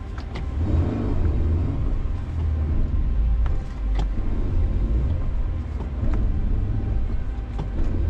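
A 1994 Ford Explorer's 4.0-litre V6 engine running with a loud, uneven low rumble as the 4x4 drives through deep snow, with a few sharp knocks.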